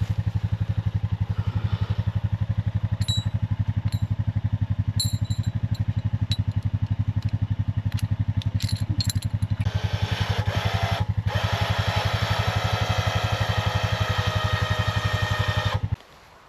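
Four-wheeler (ATV) engine running with a steady, fast low pulse. A higher whine joins for the last several seconds, then the engine shuts off suddenly near the end.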